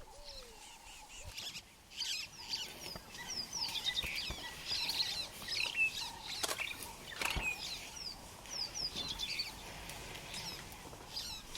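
Wild birds chirping: many short, quick, high whistled notes from several birds, overlapping, with a couple of sharp snaps around the middle.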